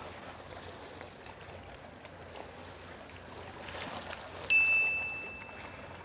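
A single bright chime-like ding about three-quarters of the way in, one steady high tone that rings and fades over about a second and a half. Before it, only faint scattered clicks and crunches of raw shrimp being chewed.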